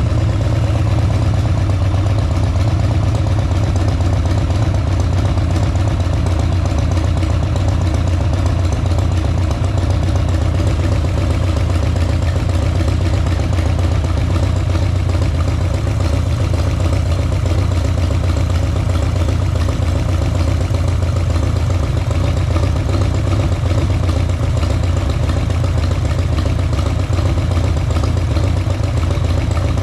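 Harley-Davidson Sportster air-cooled V-twin idling steadily, with a light tapping from the front cylinder that the owner suspects is the hydraulic lifters knocking on poor-quality oil once the engine is hot.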